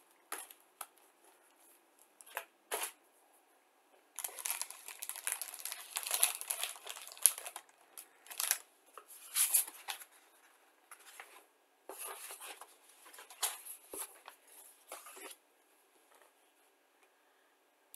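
Clear plastic bag around plastic model kit sprues crinkling as it is handled, in several bursts: a few short rustles, then longer spells of crinkling through the middle.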